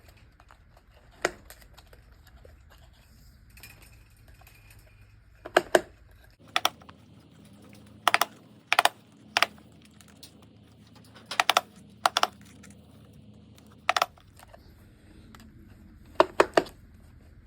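Plastic line head of an Echo string trimmer clicking in short bursts of two or three clicks as it is twisted by hand to wind the trimmer line in.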